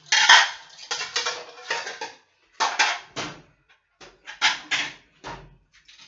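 Dishes and kitchenware clattering as they are handled and set into a wire dish rack at the sink: clusters of clinks and knocks with short gaps, the loudest right at the start.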